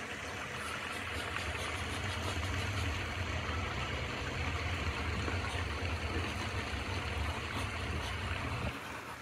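A motor running steadily, a low hum with a hiss above it, cutting off suddenly near the end.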